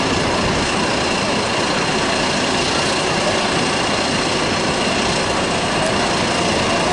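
Steady mechanical running noise of a Maurer SkyLoop roller coaster as its train is hauled up the vertical lift, with a faint, steady high tone running through it.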